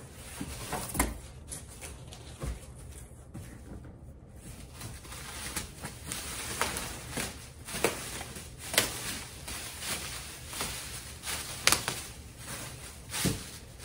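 Clear plastic packing sheet rustling and crinkling as it is pulled and gathered by hand, with irregular sharp crackles that grow busier about five seconds in.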